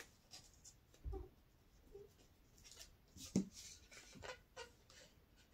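Faint handling of paper and a glue stick: soft rubbing and rustling with a few light taps, a low thump about a second in and a sharper tick a little after three seconds.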